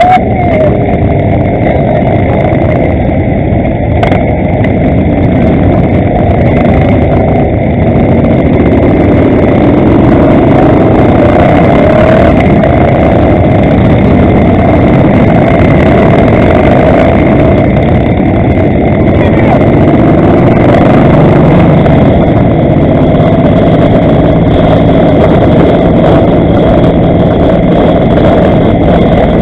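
Motorcycle engines running as a group of motorcycles moves off and rides along, heard from a camera mounted on one of the bikes: a loud, steady rumble whose engine pitch rises and falls a few times as the riders work the throttle.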